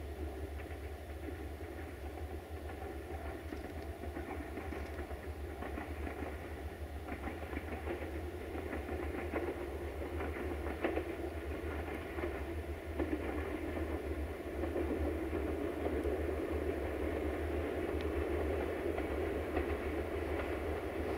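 Diesel locomotive engine running as a train draws near, growing gradually louder, with a few sharp clicks of wheels on the rails about halfway through.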